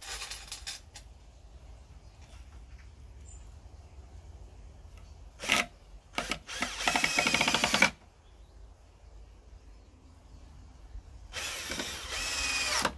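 Cordless drill running in short bursts into the wooden pallet frame. There is a brief run at the start and a quick one about five and a half seconds in. A longer run of nearly two seconds follows, and another of about a second and a half comes near the end.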